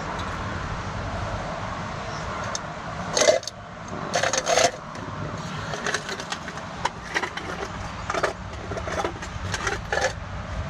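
Metal tools clanking and knocking against the skidder's winch parts, with loud sharp strikes about three seconds in and twice more around four and a half seconds, then many lighter clicks and taps. A steady low engine hum runs under it.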